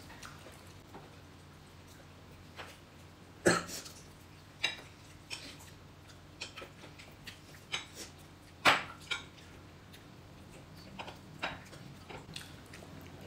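Table eating sounds: a metal spoon clinking against a glass bowl and a plate in scattered, uneven taps, with two sharp loud clinks about three and a half and nearly nine seconds in.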